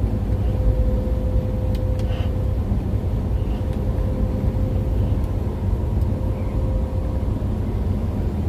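Steady low rumble of a truck's engine and tyres heard from inside the cab while driving, with a thin steady hum that fades out near the end.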